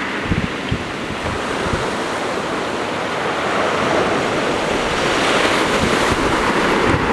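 Black Sea surf: waves washing and breaking on the shore in a steady rushing wash that swells louder about five seconds in, with wind buffeting the microphone.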